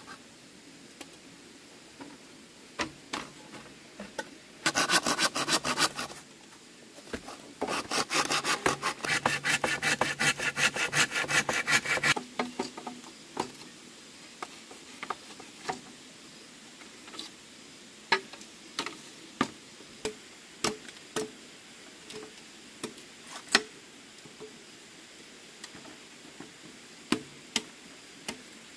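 Fast, even scraping strokes on wood in two bursts, a short one and then a longer one of about four seconds, followed by scattered single knocks and taps.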